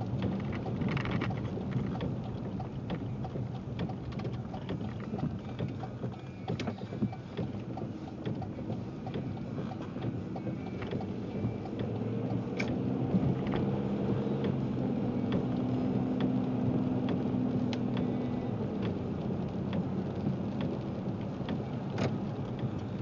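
Car interior noise while driving on a wet road in rain: a steady engine and tyre hum with scattered ticks of raindrops on the car. The hum grows a little louder and gains a few steady tones about halfway through.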